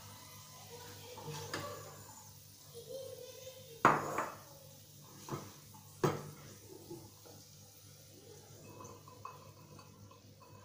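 Metal spoon scraping and clinking in a frying pan as cooked dry black chickpeas are scooped and tipped into a serving bowl. Several sharp clanks come around the middle, the loudest about four seconds in and again about six seconds in.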